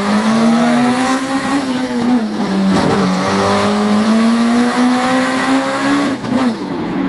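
AI-generated sound effect from Meta Audiobox of a fast sports car's engine revving hard through the gears. The pitch climbs and then drops sharply at each gear shift, about 3 seconds in and again about 6 seconds in.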